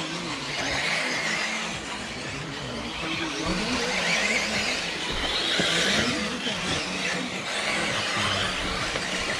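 Several radio-controlled racing cars running on a track, their motors whining in pitches that rise and fall as they speed up and slow down, over the rushing sound of their tyres.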